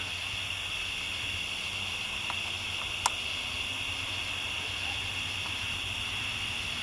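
Steady chorus of crickets and other night insects, an unbroken high-pitched trill, with one short click about three seconds in.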